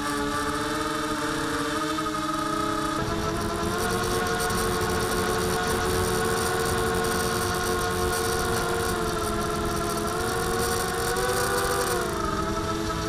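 Motor and propeller of a mini UAV heard from its onboard camera: a steady buzzing whine that steps up in pitch about three seconds in and wavers up and back down near the end as the throttle changes, over a rush of air.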